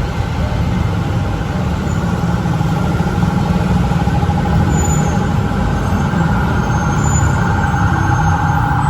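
Fire truck's engine running loud and close: a heavy steady rumble with a steady mid-pitched whine over it.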